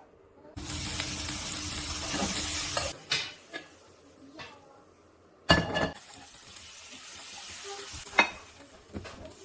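Stir-frying in hot oil: a loud sizzle starts suddenly and cuts off after about two seconds, then a few sharp clinks of a spatula against the pan. Another loud burst of sizzling comes about halfway through, followed by quieter sizzling with occasional clinks.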